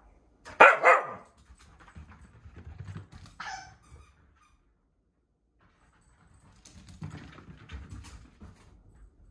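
Scottish terrier barking twice in quick succession, then once more, shorter, about three and a half seconds in, while excited with the zoomies. Between and after the barks come low scuffling and thumps with some clicks as the dog scrambles about on a rug over a wood floor.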